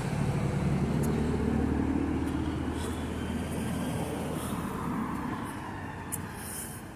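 A road vehicle's engine rumbling past, fading steadily as it moves away.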